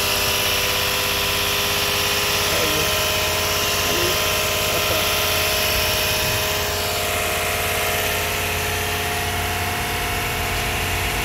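Lexus IS250's 2.5-litre V6 idling steadily just after its first start following a head gasket replacement. It is at a raised cold-start idle that is expected to drop once the engine warms up.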